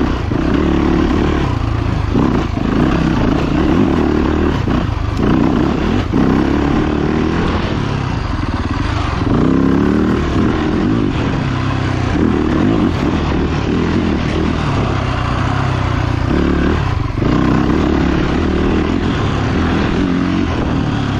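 Dirt bike engine running under load, its pitch rising and falling with the throttle, with a few short dips along the way.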